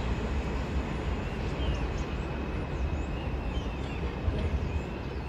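Low, steady rumble of a distant elevated subway train approaching, with several short bird chirps over it.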